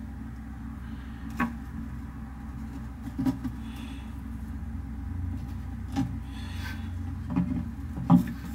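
About five short, sharp clicks and knocks, spread out and the last the loudest, over a steady low hum, while a bearded dragon feeds on dubia roaches from a plastic dish.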